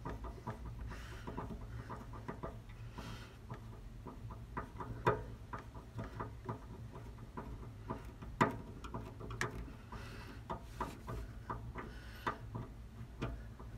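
Irregular small clicks and taps of machine screws and metal clamp parts being handled and screwed into a Quick Fist clamp mount, with two louder knocks about five and eight and a half seconds in.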